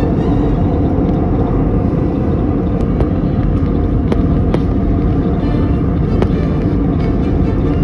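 Airliner cabin noise: a loud steady rumble of engines and rushing air, with a few short clicks or knocks in the middle of the stretch.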